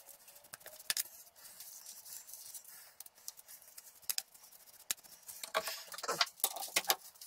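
Faint clicks, taps and light rattles of tools and parts being handled at a stopped metal lathe, growing busier and louder over the last couple of seconds.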